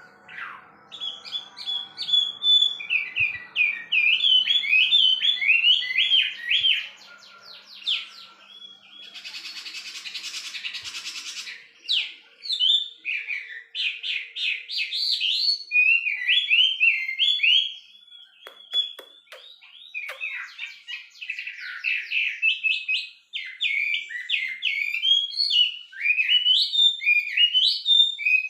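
Chinese hwamei (wambi) singing a long, loud run of rapid, varied whistled phrases, with a harsh hiss about nine seconds in lasting about two seconds.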